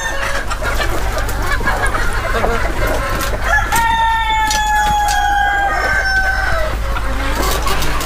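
A flock of gavran (Indian desi) chickens clucking throughout. About three and a half seconds in, a rooster gives one long drawn-out crow lasting about three seconds, sliding slightly down in pitch.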